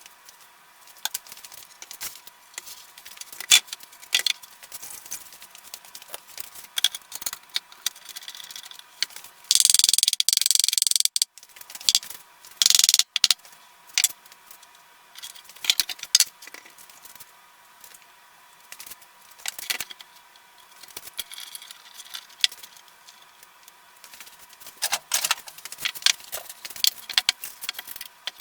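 Irregular clicks, knocks and rattles of tools and hardware being handled at the bench, broken by two short, loud hissing bursts about ten and thirteen seconds in.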